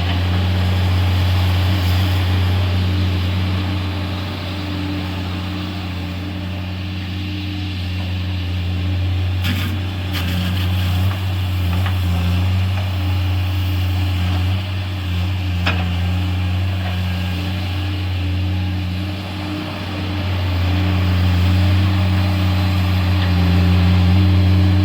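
Diesel engine of a heavy logging machine running steadily at a constant speed, with a few faint clicks about ten and sixteen seconds in.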